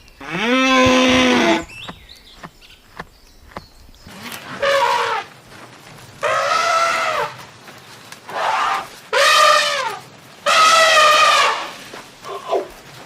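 Animal calls: one low call with a falling pitch near the start, then, after a pause of a couple of seconds, a series of about six higher calls, each rising and falling in pitch and lasting up to about a second.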